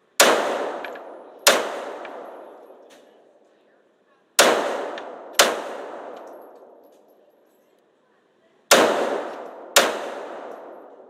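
Six gunshots in three pairs, each shot followed by a long echoing decay.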